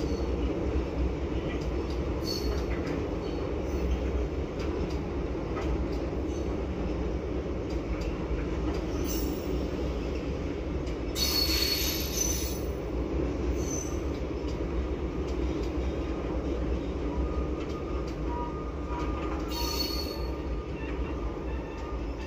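A train rolling along the track with a steady rumble. Short bursts of high wheel squeal come through, the loudest about halfway through.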